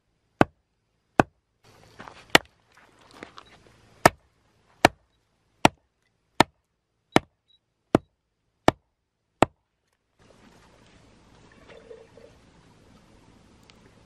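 Sharp wooden knocks, about one every three-quarters of a second and eleven in all: a handmade wooden mallet, its handle being pounded home into the log head. The knocking stops about ten seconds in, leaving a faint outdoor hush.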